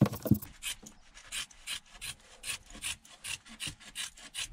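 Scissors cutting woven 18-ounce fiberglass cloth: a steady run of short, crisp snips, about three or four a second, after a couple of louder knocks at the start.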